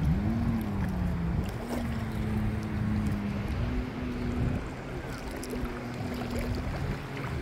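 Distant jet ski engine running, its pitch dipping about half a second in and then holding mostly steady with small rises and falls, over wind on the microphone and lapping water.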